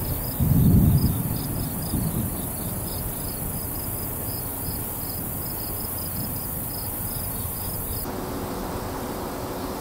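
Field insects chirping in a steady, even rhythm of high pulses. A low rumble rises about half a second in and comes again more faintly near two seconds. Near the end the chirping cuts off and a steady hiss takes over.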